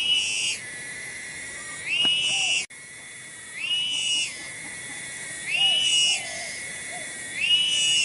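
An animal's call, repeated five times at an even pace of about one every two seconds: each rises quickly, then holds a steady whistle-like pitch for just over half a second. A steady hiss runs underneath, and the sound cuts out for an instant a little before three seconds in.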